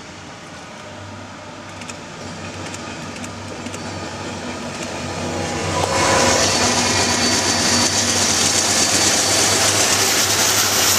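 Diesel freight locomotives approaching and passing close: a steady engine drone with wheel-on-rail noise. It sounds muffled from inside a car at first, grows louder, and turns loud and bright about six seconds in.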